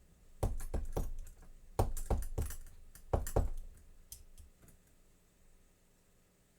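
Small metal tools and lock parts clinking and knocking as they are handled and set down on a work surface, in three short clusters of clicks over about three seconds, then a few faint ticks.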